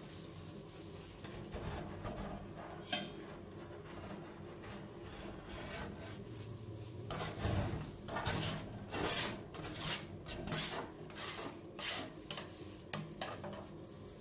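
Metal spatula scraping across the steel cold plate of a rolled-ice-cream pan, clearing off frozen cream in a run of quick strokes about two a second from about halfway through. Before that, softer rubbing of gloved hands and spatula on the plate.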